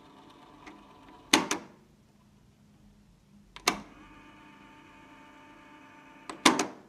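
Built-in cassette deck of a Commodore PET 2001: its mechanical piano-key buttons clack down three times, about a second and a half in, near the middle and at the end. Between the keypresses the tape transport motor runs with a faint steady whirr, stopping after the first clack and starting again with the second.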